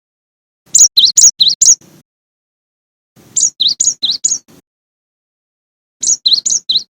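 Gelatik batu (cinereous tit) singing: three short phrases of quick two-note calls, each swinging from a high note down to a lower one and repeated four or five times, with pauses of about a second between the phrases.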